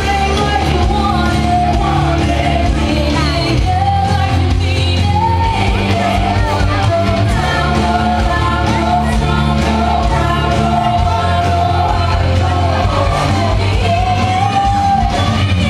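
Loud rock music with a lead singer, from a band on stage, over a steady low bass.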